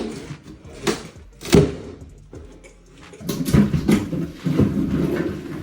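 Demolition work in a small tiled bathroom: three sharp knocks or bangs in the first second and a half, then a couple of seconds of irregular clattering and scraping.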